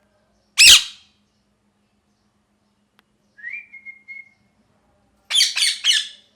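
Ringneck parrot squawking: one loud harsh squawk, a short whistled note that rises and then holds about three seconds in, then three quick squawks in a row near the end.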